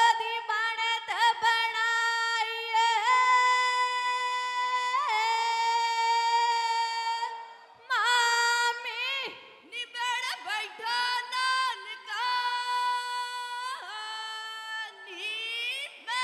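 A woman singing unaccompanied in a high voice, a Punjabi folk song for the Gidda dance, in long held notes with short slides and brief breaks for breath.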